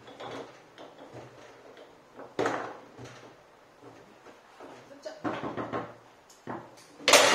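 Foosball game in play: the ball is struck by the rod men and bangs off the table walls in hard knocks. There is a sharp knock about two and a half seconds in and a quick run of knocks about five seconds in. The loudest knock comes near the end.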